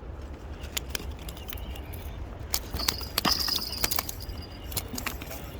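Irregular sharp clicks and knocks over a steady low hum, with a brief high whistle-like tone about three seconds in.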